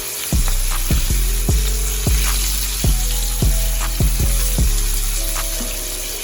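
Whole pompano frying in hot oil in a pan, a steady sizzle, as oil is spooned over the fish. Instrumental background music with a steady kick-drum beat, a little under twice a second, plays over it.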